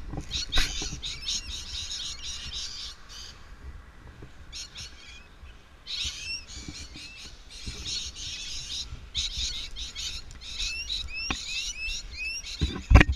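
Birds chirping in quick, dense clusters of high calls with short upward sweeps, falling away for a couple of seconds in the middle. A low rumble runs underneath, and there are a few sharp knocks, the loudest about half a second in.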